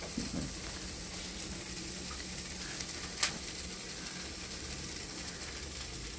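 Garlic, onion and ginger sautéing in oil in a frying pan, a faint steady sizzle, with one sharp click about three seconds in.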